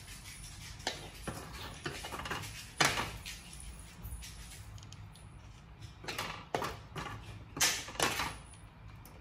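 A utensil clinking and scraping against a ceramic plate of stir-fried vegetables, in scattered sharp clicks. The loudest is about three seconds in, with a few more between six and eight seconds.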